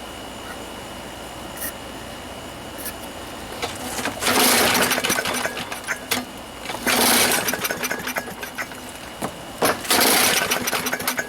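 Craftsman push mower's small engine being pull-started three times, each tug on the recoil cord cranking it noisily for about a second before it dies back without catching.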